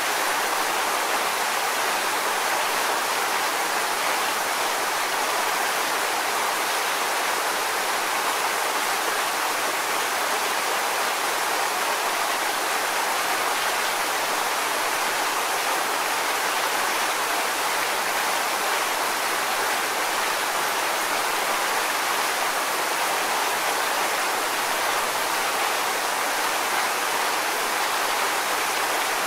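Waterfall: falling water splashing in a steady, even rush that carries mostly in the middle and upper range, with little deep rumble.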